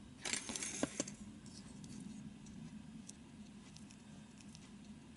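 Small plastic model-kit parts (a Gunpla fin funnel attachment) being handled and fitted together in the fingers: a short patter of light plastic clicks and rustling about half a second in, then scattered faint ticks.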